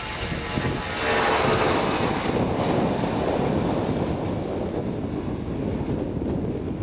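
The four CFM56 turbofans of a China Airlines Airbus A340-300 at takeoff thrust, a loud jet roar that swells about a second in as the airliner passes on its takeoff roll. A whine falls in pitch as it goes by, then the roar runs on steadily as it rotates.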